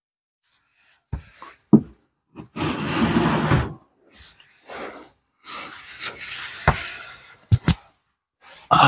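Hand tools and the differential fill plug being handled: sharp metal clicks and knocks, with two longer stretches of cloth rubbing.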